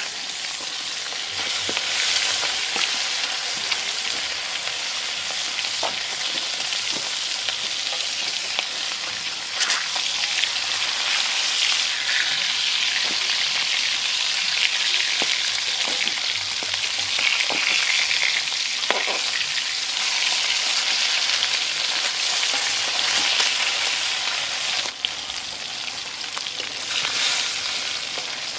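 Egg-coated milkfish sizzling steadily in hot oil in an aluminium wok, with a few sharp pops. A metal spatula scrapes the pan as the fish are turned.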